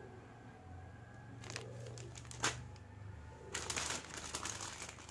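Thin clear plastic jewellery packets crinkling as they are handled and lifted away: a few short rustles, then a louder crinkling burst about three and a half seconds in.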